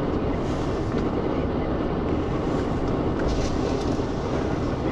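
Off-road 4x4 running, heard as a steady, dense rumble with no clear pitch.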